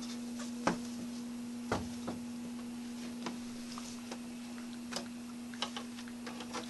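A steady low electrical hum, with a few sharp clicks and taps scattered over it.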